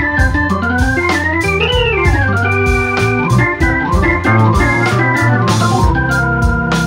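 Blues organ solo on an electric stage keyboard: sustained chords and runs, with a note bent up and back down about a second and a half in, over a steady drum beat.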